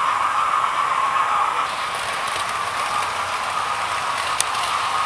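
Several OO gauge model trains running fast around a layout: a steady whirring hum of their electric motors and wheels on the track, with one brief tick near the end.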